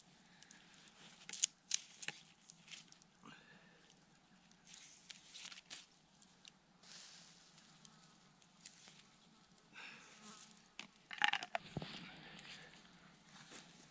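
Knife stripping the fibrous skin off a burdock flower stalk: scattered sharp snaps and tearing of the peel, with grass rustling and an insect buzzing past. A louder rustle and thump near the end.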